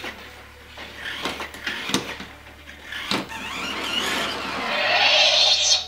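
Spin Master Legendary Yoda animatronic toy moving: its motors whir and click as it turns its body around with its lightsaber. A rushing noise builds over the last two seconds or so and cuts off suddenly.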